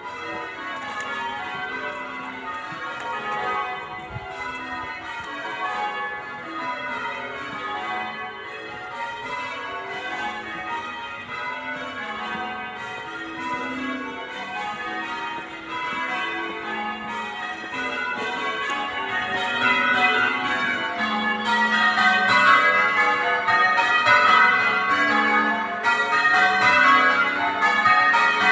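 A ring of eight church tower bells rung in changes, a Surprise Major method, in an unbroken run of strokes. The ringing grows louder about two-thirds of the way in.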